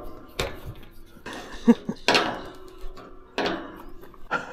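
Steel tube farm gate knocking and clanking on its metal hinge pins as it is fitted and worked with a hand tool: a handful of sharp metallic clanks, spaced irregularly.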